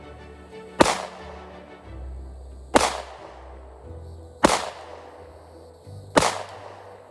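Taurus G2C 9mm pistol fired four times at an even, unhurried pace, a shot about every second and three-quarters. Each shot is a sharp crack with a short echoing tail.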